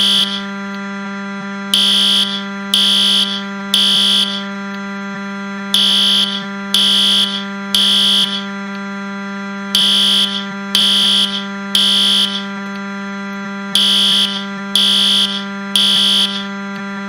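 Fire alarm sounding in the temporal-three pattern: three loud, high beeps about a second apart, then a pause, repeating. Under it runs a steady low buzz, the Wii console crash sound pitched down.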